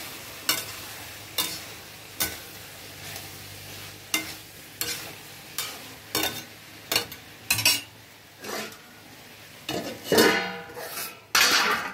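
Metal spatula stirring and scraping potato-and-eggplant curry frying in a steel kadhai. Clinks and scrapes come about once a second over a steady sizzle, with two longer, louder scrapes near the end.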